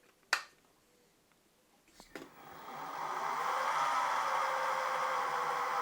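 A sharp click, then a couple of small clicks about two seconds in as a benchtop milling machine's spindle motor is switched on; the motor winds up over about a second to a steady whine.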